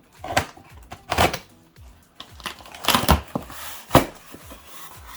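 Cardboard shipping box being opened by hand: a run of scraping, rustling and knocking, with four louder sharp scrapes and knocks spread through it.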